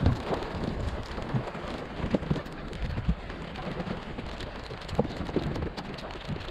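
Small waves slapping and splashing against the side of a fishing boat's hull, with scattered sharp knocks and taps.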